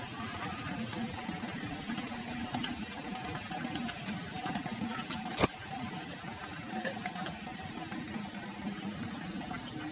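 Thick, creamy bilo-bilo boiling in a steel pot, bubbling and popping steadily, with a faint steady hum underneath and one sharp click about five and a half seconds in.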